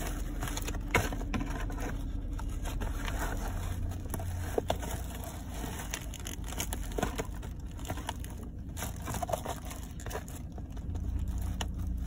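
Sneakers stamping on a cardboard figure box and its clear plastic wrapping, crushing and crumpling it: irregular crinkling and crackling, with sharper cracks about a second in and again about four and a half seconds in, over a steady low hum.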